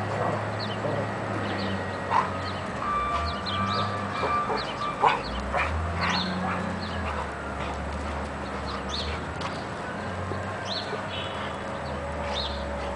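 Two dogs play-fighting and vocalising, with many short high-pitched sounds scattered through, and two brief sharp knocks about two and five seconds in.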